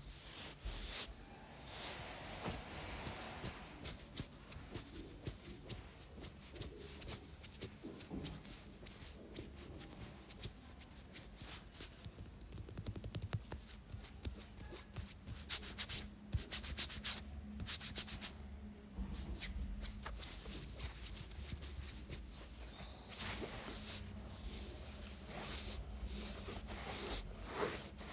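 Hands rubbing and scratching through hair and over the scalp, then over the neck and shoulders, in a head massage: irregular rustling strokes, some louder and scratchier than others.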